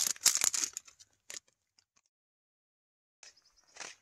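Plastic packaging crinkling and tearing as it is handled, in two short spells with a pause of about two seconds between them.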